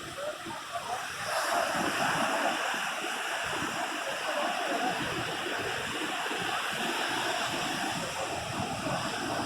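Sea surf washing onto a beach, a steady rush of water that swells louder about a second in.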